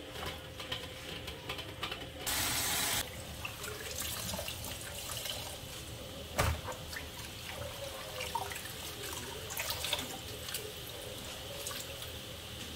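Water sloshing and dripping in a plastic basin as boiled cassava leaves are stirred and lifted out by hand, with a brief rush of water about two seconds in and a single thump about six seconds in.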